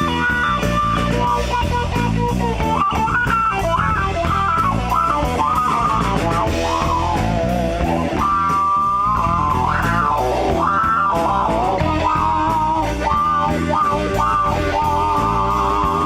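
Live rock band playing an instrumental break: a lead guitar melody with bending notes over bass guitar and a steady drum beat.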